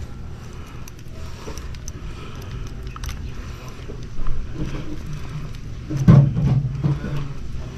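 Faint small clicks and handling noises of a rear derailleur being worked on with an Allen key, over a steady low background hum, with a louder low rumble about six seconds in.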